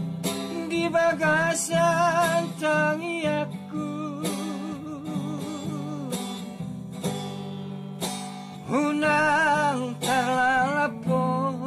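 A man singing a Batak song in a high voice, holding long notes with a wide vibrato, over strummed acoustic guitar.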